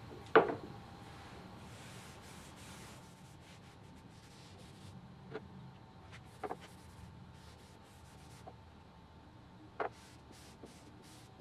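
A sharp knock as a metal can of finish is set down on a wooden bench top, followed by quiet rubbing and swishing of a rag wiping oil finish onto a wooden board, with three lighter knocks along the way.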